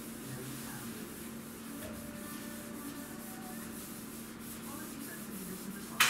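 Steady rubbing and scrubbing at a kitchen counter during cleaning, over a low steady hum, ending in one sharp knock.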